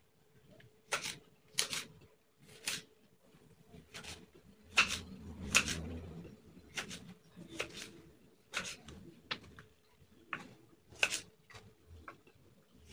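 Kitchen knife slicing large green chillies on a wooden cutting board: irregular sharp knocks of the blade hitting the board, about one a second.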